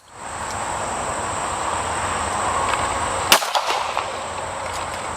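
A single sharp pistol shot about three seconds in, over a steady high chirring of insects.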